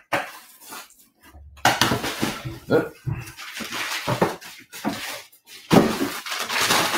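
A paper mail package being opened by hand: irregular rustling, crinkling and tearing of paper and packaging, starting about a second and a half in.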